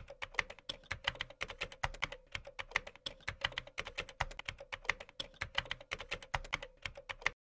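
Computer keyboard typing: a quick, uneven run of key clicks, several a second, over a faint steady hum, stopping abruptly near the end.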